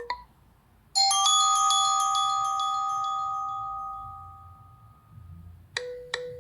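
Nokia 3 built-in ringtones playing: a bright bell-like chime of a few quick notes about a second in rings on and slowly fades. Near the end a new tone begins with rapid repeated notes.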